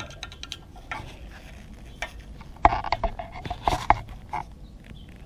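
Metal tool clinking and scraping against the condenser mounting bracket while a T25 Torx screw is driven in, with a handful of sharp irregular clicks and knocks bunched about halfway through.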